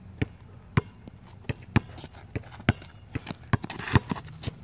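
Basketball dribbled on an outdoor asphalt court: a run of sharp bounces, about two a second, with a louder bounce near the end.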